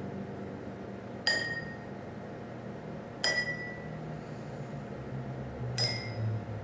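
Three ringing chime strikes, roughly two seconds apart, each a sharp ping that rings on briefly, over a low sustained drone.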